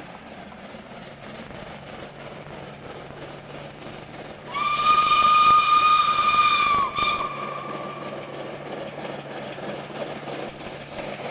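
Steam locomotive whistle: one long, steady blast of about two and a half seconds, near the middle, loud over the train's running sound. The train's noise grows louder toward the end as it draws near.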